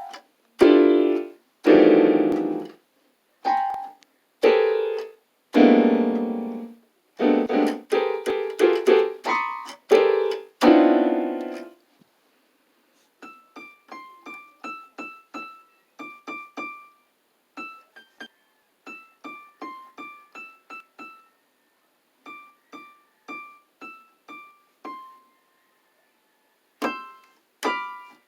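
Electronic keyboard sounding separate notes and short runs. For about the first twelve seconds the notes are loud and full. Then comes a long stretch of soft, short, high plinking notes, and loud notes return near the end.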